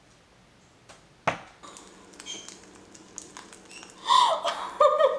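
A single sharp click about a second in, then from about four seconds a loud, high, voice-like call whose pitch slides up and down.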